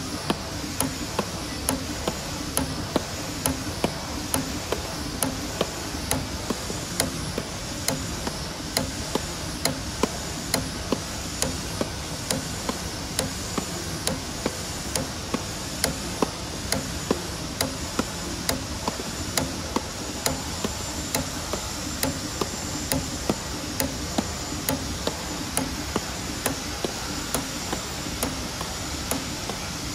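CNC camless spring forming machine running steadily while coiling 0.8 mm compression steel wire springs. A sharp click comes about once a second, one per spring, as the cutter shears off each finished spring, over a steady whirr of servo motors and a faint high whine that rises and falls with each cycle.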